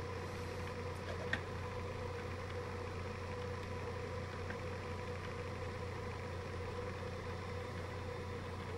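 Steady buzzy test tone of a sawtooth wave from an audio function generator kit, heard faintly from headphones over a low steady hum, with a light click about a second in.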